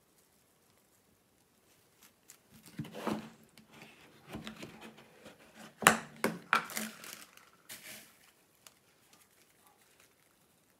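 Plastic packaging crinkling and clicking as small foam balls are shaken out onto slime: a run of rustles and snaps starting about two seconds in, the sharpest one about six seconds in.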